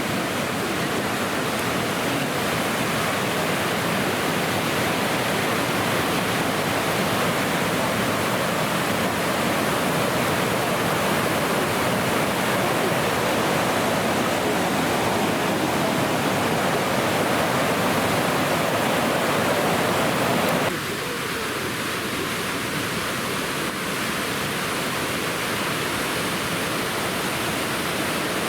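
Waterfall rushing in a steady, full roar of falling water. About two-thirds of the way through it drops suddenly to a quieter, thinner rush with less low rumble, then runs on steadily.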